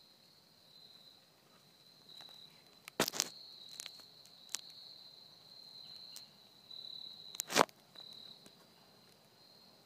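Steady high-pitched drone of insects, with a few sharp cracks like twigs snapping or steps in dry brush. The loudest cracks come about three seconds in and again about seven and a half seconds in.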